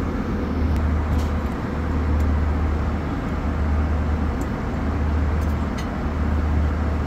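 Steady cabin noise of an Airbus A380 airliner in flight: a constant low hum under an even rush of air, with a few faint clicks.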